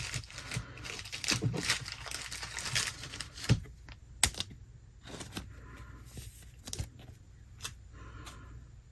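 Trading card pack wrapper crinkling and cards being handled, with dense rustling at the start, then scattered light clicks and taps.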